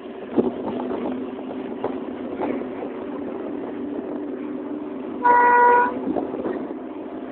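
Fire engine running on the road with a steady drone, and a single horn blast of under a second about five seconds in, the loudest sound.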